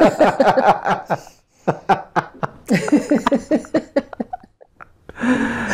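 A man and a woman laughing together in quick repeated chuckles with short pauses, dying away about four seconds in.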